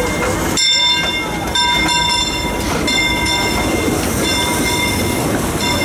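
Narrow-gauge steam train of the Disneyland Railroad rolling slowly past along a station platform: a steady rumble of locomotive and coaches under a steady high metallic squeal, which breaks off briefly near the start and fades in the second half.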